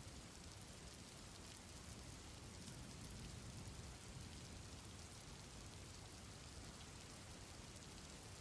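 Faint, steady rain ambience: an even hiss of rainfall with fine drop patter, with no change in level.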